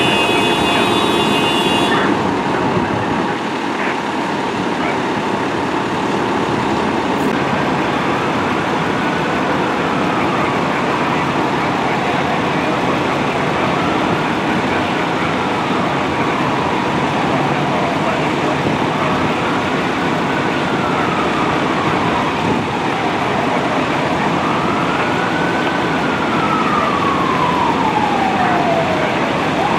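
An emergency vehicle siren on a slow wail, rising and falling about once every five seconds. It comes in faintly several seconds in and grows louder toward the end, over steady street traffic noise.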